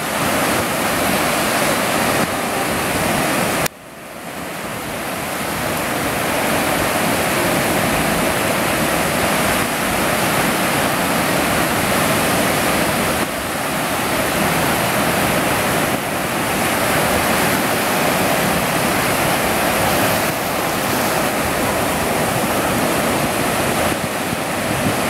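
Ocean surf breaking on the beach, a steady rush of waves. It drops away suddenly about four seconds in and builds back over the next few seconds.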